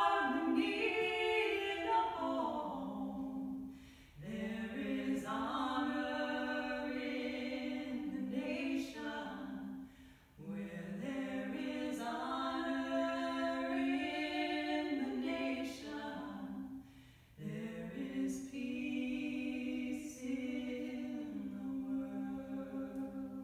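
Two women's voices singing a cappella in harmony: four long, held phrases with brief pauses for breath between them.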